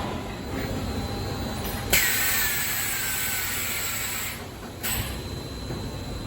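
Mattress-making machinery running with a steady low hum. About two seconds in, a loud hiss starts suddenly with a faint falling whine in it, then cuts off after about two and a half seconds.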